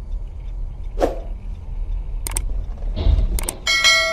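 Car cabin road noise, a steady low rumble with a few sharp clicks and knocks and a heavier thump about three seconds in. Near the end a bright bell chime rings out and keeps ringing: a subscribe-button sound effect laid over the footage.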